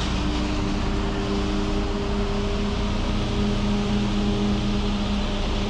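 Concrete mixer truck's diesel engine running steadily, a constant hum with no change.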